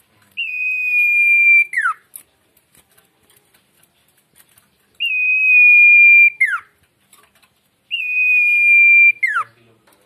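A caged sirtu songbird singing three long, steady whistled notes, each held about a second and a half and ending in a quick falling slur.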